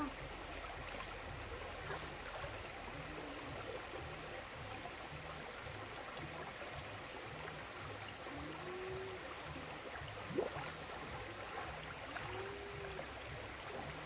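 River water running steadily over rocks in a shallow pool: a steady rush of water, with a single brief sharp sound about ten seconds in.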